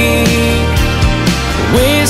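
Country song playing as an instrumental passage with a steady drum beat under sustained notes. Near the end a note slides upward.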